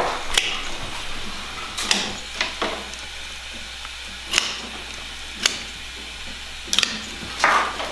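Hand cutters snipping off the ends of willow sticks on a bent willow chair back: a run of about seven or eight sharp snaps, irregularly spaced.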